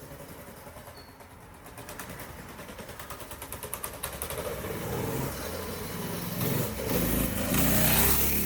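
Mini bike's small single-cylinder engine running as the bike approaches, steadily getting louder and loudest near the end.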